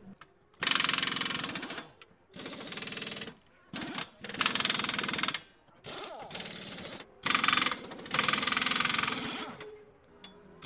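Screwdriver backing screws out of the plastic housing of an electric desoldering gun: repeated bursts of fast rattling clicks, each lasting a second or so.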